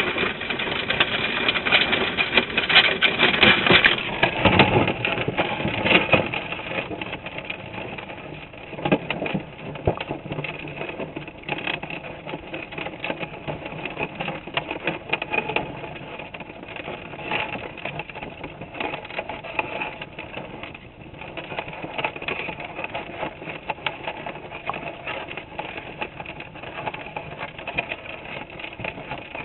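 Muffled sound of a crawdad trap being sunk into a creek, heard through a GoPro's waterproof housing inside the wire-mesh trap. Loudest over the first few seconds as the trap goes into the water, it then settles into a steady, dense crackle of rapid clicks and ticks.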